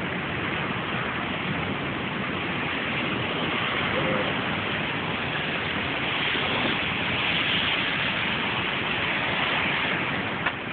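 Rain falling steadily in a thunderstorm, a dense, even hiss that swells a little in the middle, with a single click near the end.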